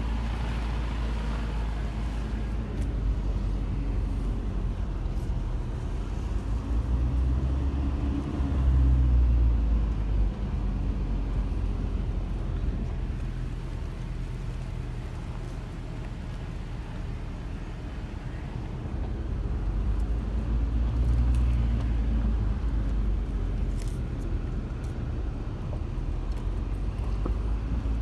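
Low, steady rumble of a vehicle's engine and tyres on a dirt road, heard from inside the cab, swelling louder twice, about a third of the way in and again past the middle.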